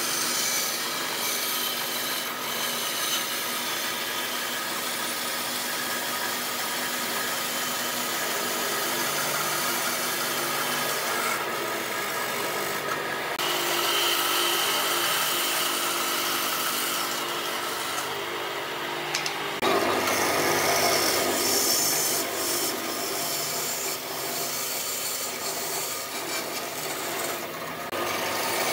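Band saw cutting through thick solid-wood blocks: a steady, noisy hiss of the blade in the timber, changing abruptly in tone about a third of the way in and again about two thirds in.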